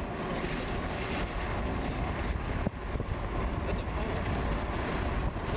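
Steady road and wind noise of a vehicle driving at speed: a continuous low rumble with a hiss of rushing air.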